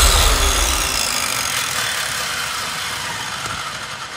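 Sound-effect sting for an animated logo: a low boom at the start, then a dense whoosh that sinks slightly in pitch and fades away over the next few seconds.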